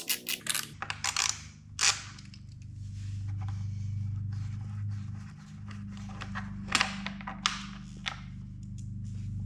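Metal clicks and scrapes of a 5 mm hex key working a fender bolt loose, with a few sharp clicks spread through. A steady low hum runs underneath.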